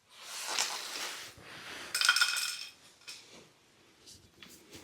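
Metal hand tools clinking and rattling as they are rummaged through and handled, with the loudest ringing clink about two seconds in.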